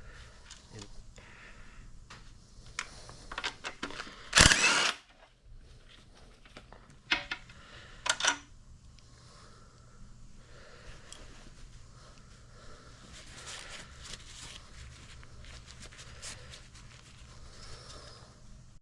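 Scattered metallic clicks and clanks of hand tools and engine parts as the upturned engine is turned over to bring up a connecting rod, with one loud clatter about four and a half seconds in and two sharp clicks around seven and eight seconds.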